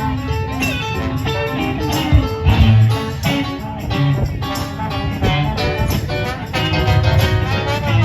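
Live band playing an instrumental passage, led by guitar, with no singing.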